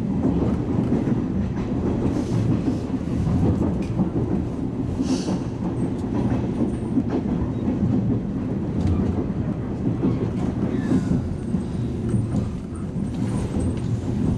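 Toyama Chihō Railway 10030 series electric train (the former Keihan 3000 series) running at speed, heard from inside the car: a steady low rumble with an occasional click of the wheels over rail joints.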